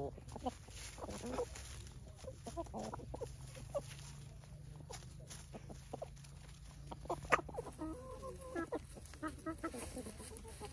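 Chickens clucking in short, soft, scattered calls while the flock pecks and scratches in dry leaf litter, with brief clicks throughout and one sharp tap about seven seconds in, over a low steady hum.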